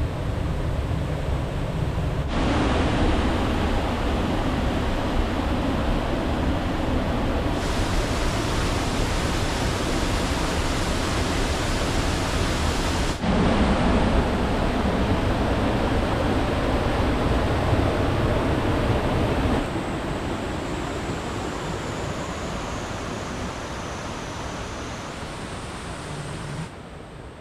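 Rushing water of a waterfall and stream swollen by heavy monsoon rain: a steady, dense rush of water that changes abruptly in level several times and fades away near the end.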